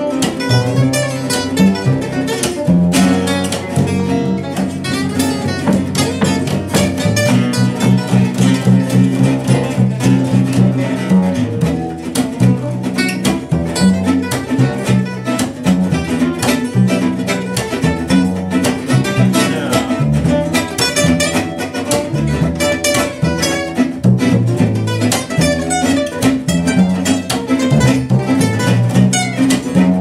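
Live gypsy jazz on two acoustic guitars with a plucked double bass: a dense run of picked guitar notes over a walking bass line, without a break.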